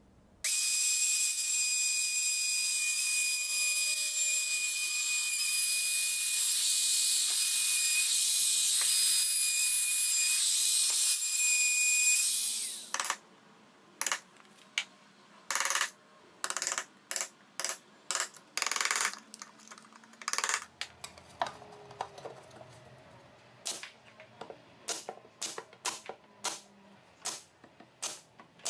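Compact Makita trim router running for about twelve seconds, a steady high-pitched whine as it cuts, then switching off. A chisel is then struck with a mallet in a series of sharp taps, and near the end a brad nailer fires in a quick run of sharp snaps.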